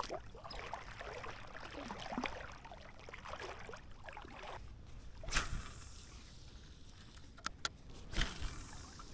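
Shallow water sloshing and lapping, with a few short sharp splashes or knocks in the second half.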